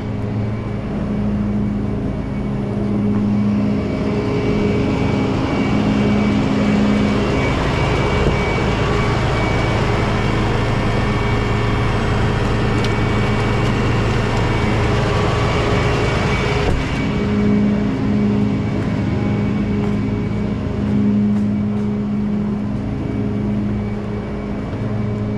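A vehicle engine running steadily with a constant low hum, under a broad hiss that drops away about seventeen seconds in.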